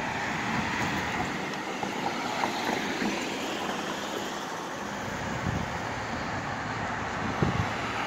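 Steady city street traffic noise, with a few small knocks.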